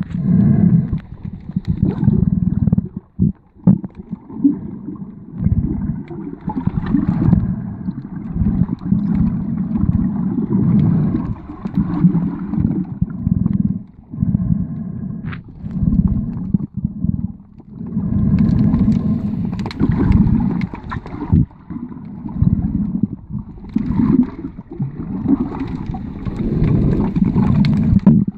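Muffled underwater sound from a camera held below the surface while snorkeling: low rushing and gurgling of water around the camera, swelling and fading every few seconds.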